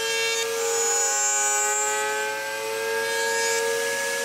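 Table-mounted router with a dovetail bit running at speed, a steady high whine whose pitch shifts slightly as it cuts a dovetail groove in the maple fence pieces.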